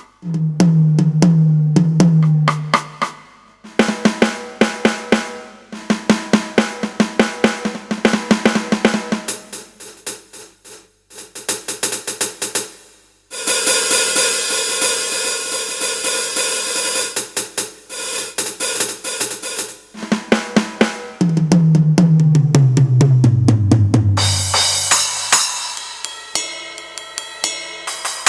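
Drum-kit samples triggered on an Avatar PD-705 electronic percussion pad: fast runs of snare, tom and kick hits with hi-hat and cymbals, broken by short pauses. A long bright cymbal wash fills the middle, and a low bass tone slides down in pitch near the end.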